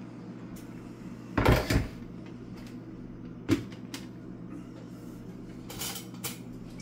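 A heavy clunk about a second and a half in, then a sharp knock two seconds later and a few light clicks: a blender jar being handled and knocked against the counter and bowl while the salsa is emptied out. A steady low hum runs underneath.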